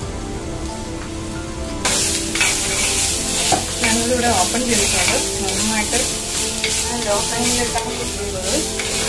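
Chopped banana stem and sprouted mung beans frying in a clay pot, sizzling while a plastic spatula stirs and scrapes through them. The sizzle gets much louder about two seconds in.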